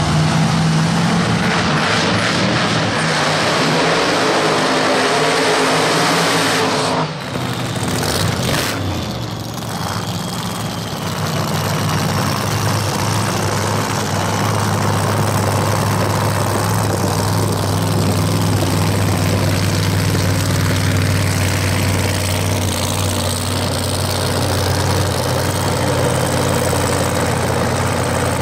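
Supercharged V8 of a Lamborghini-bodied drag car running at a steady idle, with a brief dip in the sound about seven seconds in.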